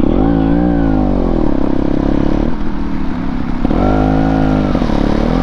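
Off-road motorcycle engine heard on board, rising in pitch and falling back twice as the throttle is opened and eased off while riding a dirt trail, over a steady low rumble.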